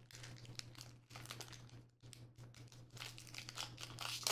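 Foil wrapper of a Pokémon booster pack being torn open and crinkled as the cards are slid out: an irregular crackling with many small sharp crinkles, busiest near the end.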